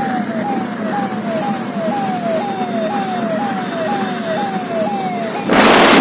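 Electronic vehicle siren (hooter) sounding a repeating falling wail, about two sweeps a second, over the hum of a moving car. Near the end a loud burst of rushing noise cuts in.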